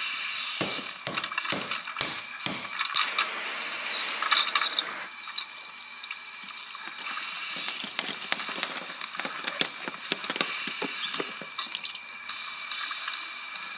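Metal claw blades of a homemade Freddy Krueger glove clicking and rattling as the glove is handled: five sharp clicks in the first few seconds, a high hiss for about two seconds, then a long run of quick clinking and rattling in the middle.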